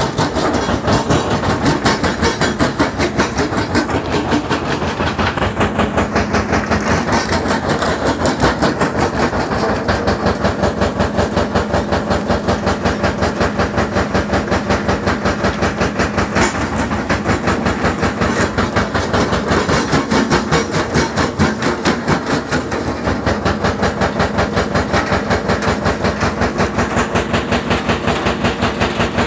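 Vibrating grizzly feeder running, rock rattling and clattering on its shaking deck in a fast, steady pulse several times a second.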